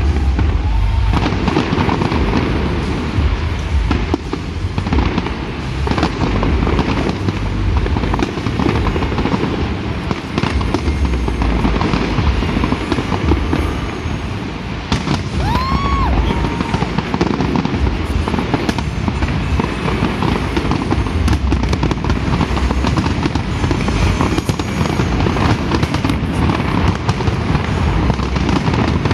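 Fireworks display going off without pause: dense rapid bangs and crackling over deep booms.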